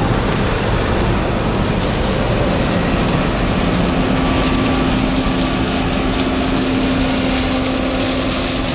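Combine harvester running steadily under load while cutting soybeans. A steady low hum joins the machine noise about three seconds in.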